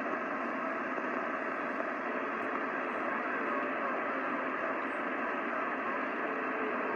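CB radio receiver on channel 28 hissing with steady static between transmissions, a thin hiss cut off at the low and high ends as it comes through the radio's speaker.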